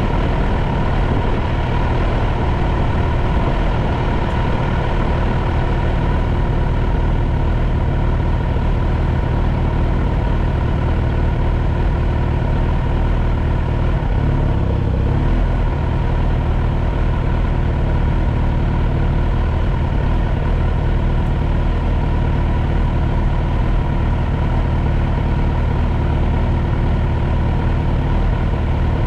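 Vehicle engine idling steadily at a standstill, a constant low drone with a thin steady hum above it.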